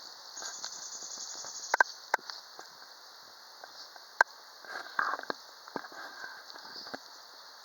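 Outdoor ambience: a steady high-pitched hiss, with a few sharp clicks and a brief patch of crackling about five seconds in.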